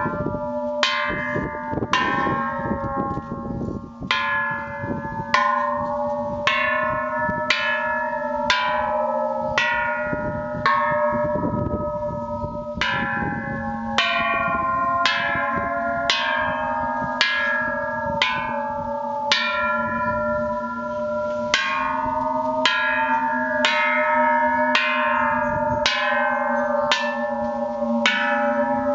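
A row of hanging Thai temple bells struck one after another with a wooden stick, about three strikes every two seconds. Each bell has its own pitch and rings on into the next, so the tones overlap in a continuous ringing.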